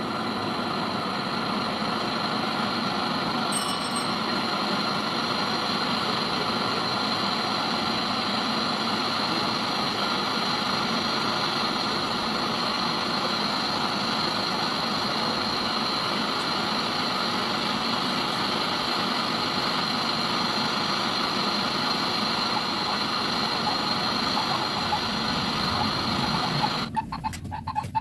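Steady mechanical running noise, like an engine or machine idling, that stays even throughout and cuts off about a second before the end, leaving a few light clicks.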